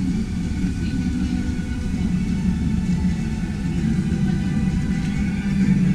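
Steady low rumble with a constant hum from a river-ride boat moving along its water channel.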